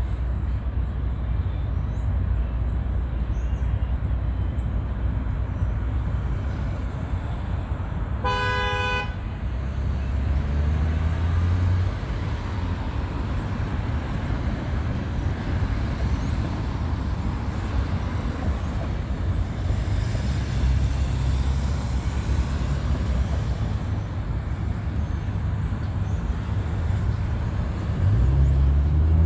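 Wind rumbling on the microphone over passing road traffic. A car horn toots once, briefly, about eight seconds in, and a vehicle engine revs up near the end.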